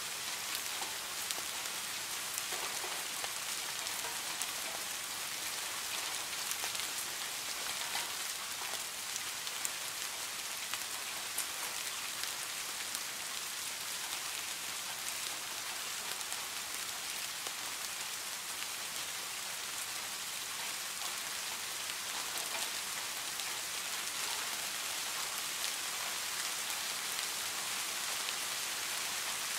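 Steady rain falling: a constant even hiss with scattered sharp ticks of individual drops.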